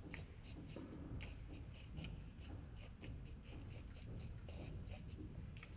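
Pen strokes scratching on drawing paper on an easel while a portrait is sketched: quick, irregular short strokes, several a second.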